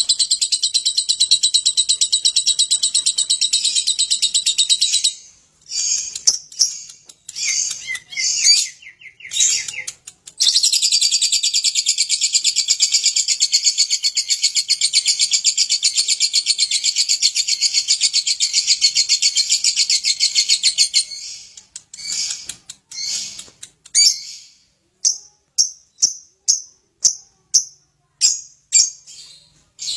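Lovebird singing its 'ngekek', long unbroken rapid chattering trills: one stops about five seconds in, and another runs for about ten seconds from about ten seconds in, with short broken chirps between. Near the end it gives single sharp chirps, roughly two a second.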